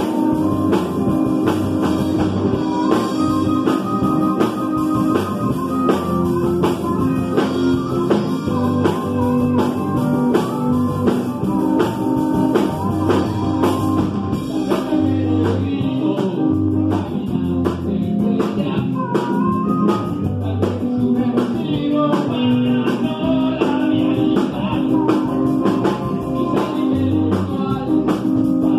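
Live rock band playing with drum kit, electric bass and electric guitar, and a wavering lead melody over them.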